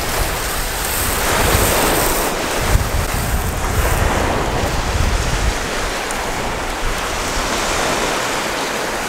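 Wind buffeting the microphone over a steady wash of Lake Michigan surf. The low rumble of the wind is heaviest for the first few seconds, then eases.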